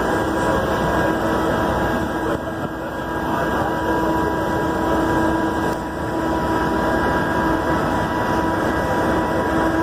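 Rumble of a passenger train rolling slowly along the track, heard from an open side of a car, with wind buffeting the microphone and a steady tone running underneath.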